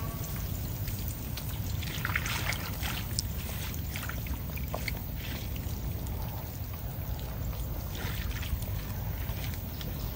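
Hands groping and scooping in shallow mud and water, with scattered small splashes and wet squelches over a steady low rumble.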